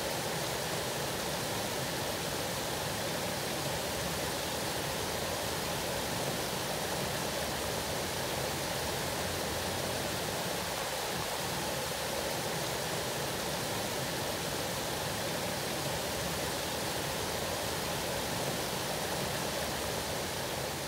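Steady rush of river water pouring over a low-head dam and churning in the boil below it.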